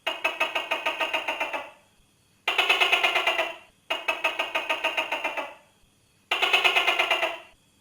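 Tokay gecko giving its rattling prelude call: four bursts of fast, evenly repeated clicking pulses, each lasting about a second and a half, separated by short silences.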